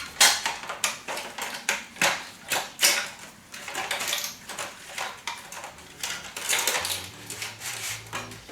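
Irregular sharp clicks and knocks of hard parts being handled and set down, several a second at times. Faint background music comes in near the end.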